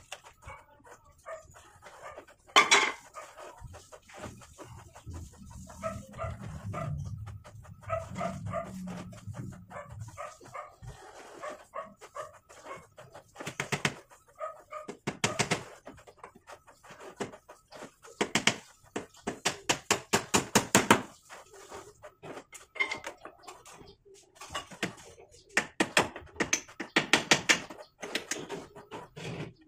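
Claw hammer driving nails into a wooden frame: a loud single blow early, then quick runs of sharp strikes, the densest in the middle and near the end.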